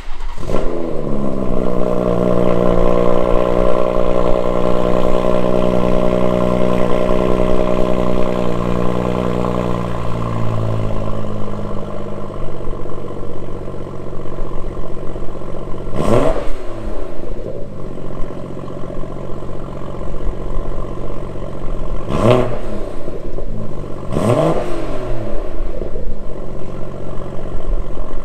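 BMW M140i's turbocharged B58 straight-six cold-starting with both exhaust resonators deleted. It flares on starting, settles into a high fast idle, and drops to a lower idle about ten to twelve seconds in. Three quick throttle blips follow, the last two close together.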